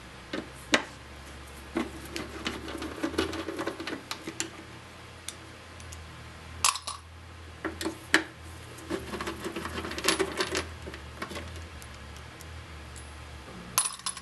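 Screws being backed out of a radio's back panel with a hand screwdriver: scraping turns and sharp metal clicks and clinks, coming in two busier bursts.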